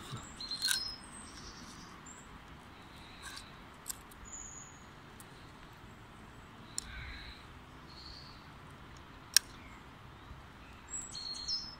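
A few small sharp clicks, the loudest about nine seconds in, from metal forceps working a hook out of a small pike's mouth, over a faint steady hiss with short high chirps now and then.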